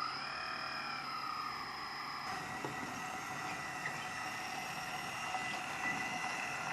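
Kabolite radio-controlled hydraulic construction model working: a steady mechanical whine of its electric motors and hydraulic pump, with the pitch gliding up and down in the first two seconds and the sound changing about two seconds in.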